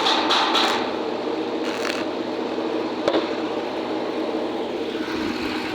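Steady machine hum with an even rushing noise, led in by a quick regular ticking that stops about a second in; a single sharp click about three seconds in.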